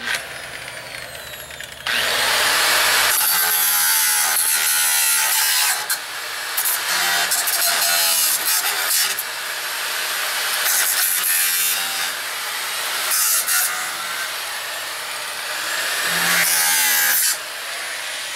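Electric angle grinder starting up and running free, then grinding into a wooden overhead beam in long loud passes with a few brief lifts. Near the end it runs free again, off the wood.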